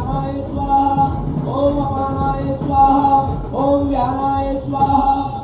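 A male voice chanting Sanskrit puja mantras in a sung, drawn-out melody, each syllable held and gliding into the next.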